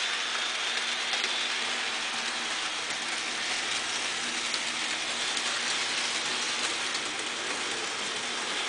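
Model train running on the layout's track: a steady whirring rattle of its electric motor and its wheels clicking over the rails.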